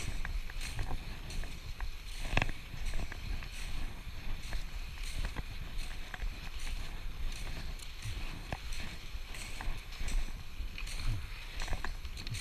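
Nordic skis gliding and scraping over groomed snow in a repeated swish, over a low rumble, with a sharp knock about two seconds in.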